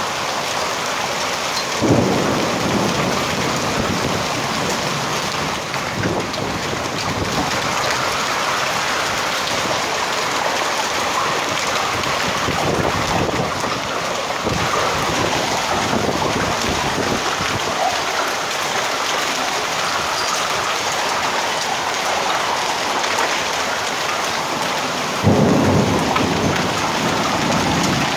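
Heavy rain pouring down steadily in a thunderstorm, with two sudden loud rumbles of thunder, about two seconds in and again near the end.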